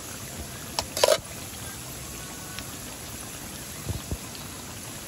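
Steady rush of flowing river water, with a couple of short sharp knocks about a second in and two low thuds near four seconds.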